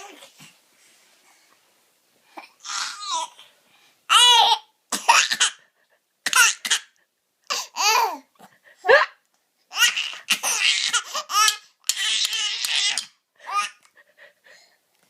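Baby laughing hysterically in a string of short giggling bursts with brief gaps between them, the longest and breathiest run of laughter coming in the second half.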